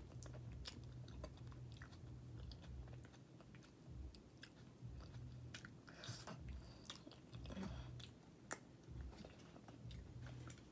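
Close-up mouth sounds of someone chewing a soft piece of roasted potato: quiet wet smacks and short mouth clicks, with the lips working around the food.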